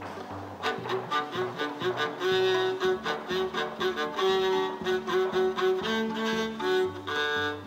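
String quartet of violins, viola and cello playing a brisk piece of short, detached notes over a moving bass line; a phrase ends near the end.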